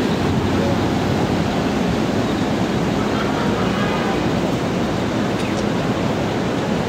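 Steady city street traffic noise, with a car passing close by.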